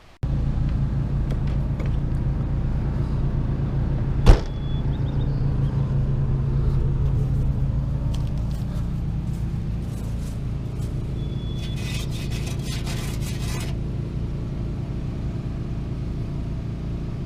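An engine running steadily with a low, even hum, broken by one sharp click about four seconds in and a short spell of light clicking and rattling about twelve seconds in.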